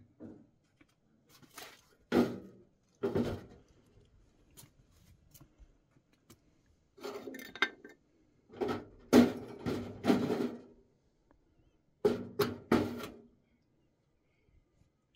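Metal clanking and knocking as a small sheet-metal stove and cookware are handled. It comes in about half a dozen short clusters of clatter, some with a brief metallic ring.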